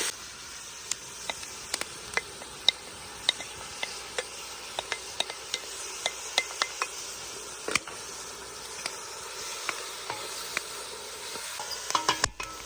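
Food frying in a pan with a soft, steady sizzle while it is stirred, the spoon clicking against the pan at irregular moments. A quick run of louder knocks comes near the end.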